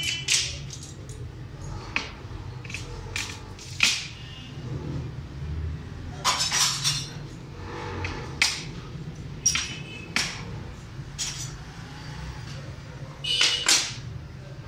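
Glass pieces clinking and knocking on a glass work table as they are handled, about a dozen separate sharp clinks, some ringing briefly, with two slightly longer scraping sounds about six seconds in and near the end.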